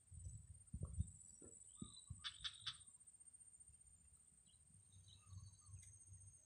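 Near-silent outdoor ambience with a faint steady high whine. A few soft low thumps come in the first two seconds, and three quick high chirps come about two and a half seconds in.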